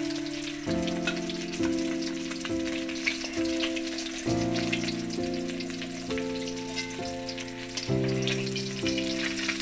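Climbing perch (koi fish) frying in hot oil in a wok: a steady sizzle with small crackles. Background music of sustained notes, changing to a new chord about once a second, plays along with it.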